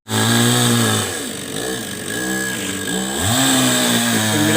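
Two-stroke chainsaw engine running. Its pitch sags and wavers from about a second in, then revs back up about three seconds in.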